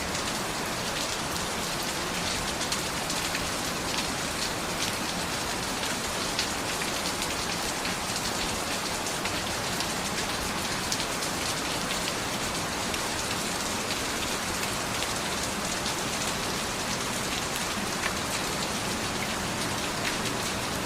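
Steady rain falling, an even hiss with scattered sharper drop ticks on a surface.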